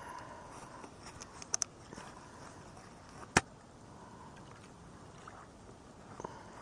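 Steady rush of a flowing river, with a few sharp clicks on top: a quick pair about a second and a half in and a single louder click about halfway through.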